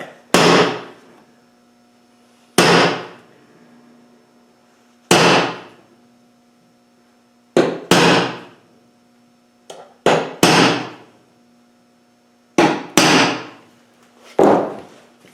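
Hammer tapping a centre punch into an aluminium panel, punching marks for rivet holes before drilling. About a dozen sharp taps come every couple of seconds, several of them in quick pairs, each with a short metallic ring.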